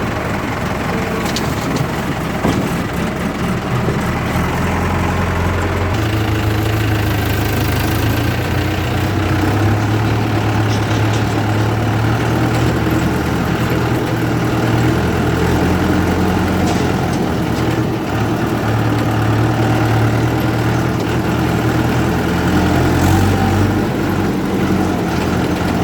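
Heavy diesel engine running steadily, its low note growing stronger about six seconds in.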